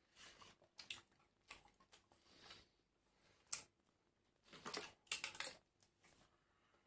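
Close-up chewing and crunching of crisp fried food, in scattered bursts: one sharp crack about halfway through, then a dense run of crunches a second later.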